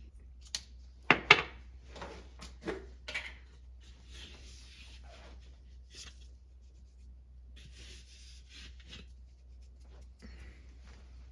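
Kitchen handling sounds while seasoning a pot of rice: a few sharp knocks of utensils and containers about a second in, then scraping and rubbing strokes. Later come two short stretches of soft hiss.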